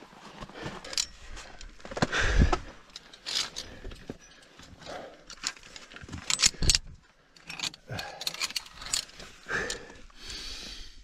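Via ferrata carabiners clinking and clicking against the steel safety cable and its anchor as they are unclipped and clipped on again, in a string of irregular metallic clicks and knocks.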